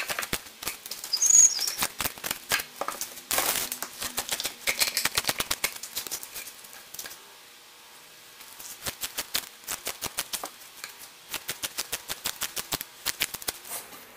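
Scissors snipping through fiberglass mat in quick, sped-up succession. There is a short pause about halfway through, then the snipping resumes at a quick, even rhythm.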